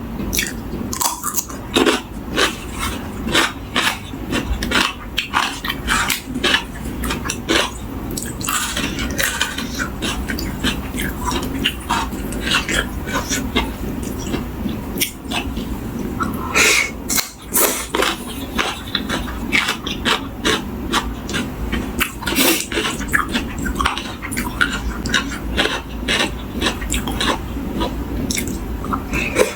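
Close eating sounds: a person biting and chewing crisp raw vegetables with a Thai seafood papaya salad, a dense, continuous run of short crunches.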